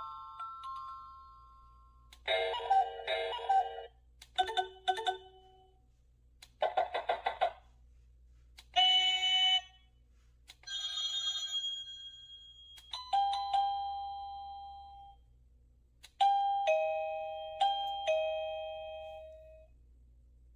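Wireless doorbell receiver playing one short electronic chime tune after another from its set of 56 chimes, each a different melody lasting a second or two, with short gaps between. The last is a two-note falling ding-dong.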